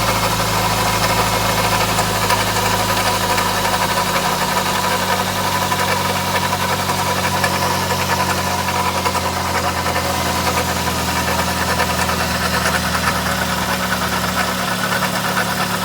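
Toyota bB (NCP30)'s 2NZ-FE four-cylinder engine idling steadily with a continuous rattling noise that does not stop; the owner suspects a failing alternator or water pump.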